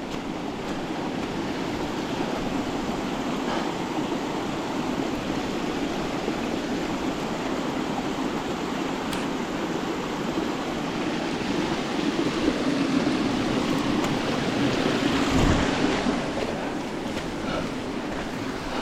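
River water rushing steadily over rocks, an even wash of noise that swells a little past the middle.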